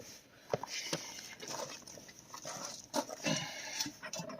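A small dog whimpering and whining in uneven bursts, with a few sharp clicks.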